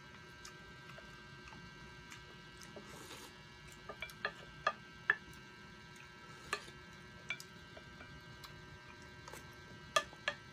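Eating sounds: wooden spoons clicking and tapping against a ceramic plate and a glass bowl, scattered and irregular, with a short slurp of soup about three seconds in. A steady faint electrical hum runs underneath.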